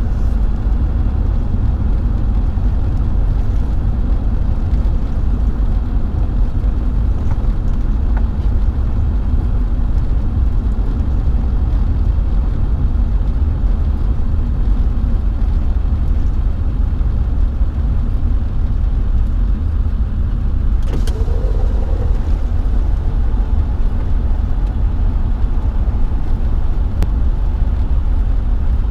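Steady low engine and road rumble heard inside a vehicle's cab. A single sharp click comes about two-thirds of the way through.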